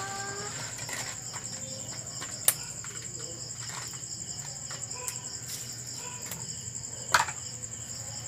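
Crickets chirping steadily, with two sharp knocks: one about two and a half seconds in, and a louder one near the end as a metal ladle strikes the wok.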